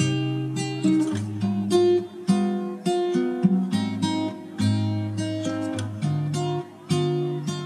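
Background music: an acoustic guitar tune of plucked and strummed notes.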